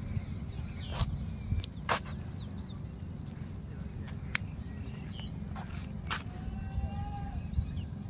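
Insects buzzing in a steady high-pitched drone, over a low rumble, with a few short chirps and clicks scattered through.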